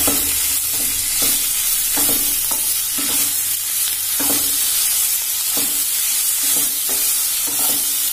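Raw chicken pieces sizzling in hot oil in a nonstick kadai while a wooden spatula stirs and scrapes them through the onion masala, about one stroke a second over a steady sizzle.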